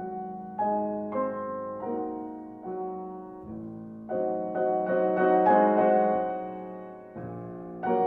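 Background solo piano music, slow and gentle, its notes and chords struck about once or twice a second and left to ring out.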